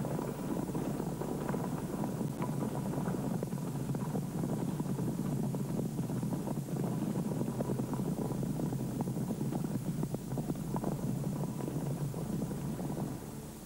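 A herd of European bison moving through deep snow: a dense rumble of many hoofbeats and crunching snow, dying away near the end.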